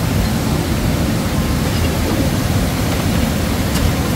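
Steady low rushing noise with no distinct events, heaviest in the low range.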